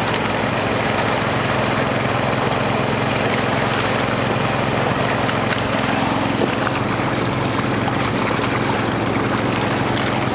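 Trout-stocking semi truck's engine idling steadily, a low hum under a steady hiss.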